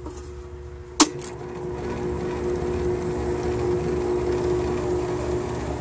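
Three-pole contactor on an R22 Lennox HS29 condensing unit pulling in with a sharp double clack about a second in, after which the unit starts and keeps running with a steady hum that grows louder. This is a start-up that throws sparks at the contactor, whose wires are loose and melted at the terminals.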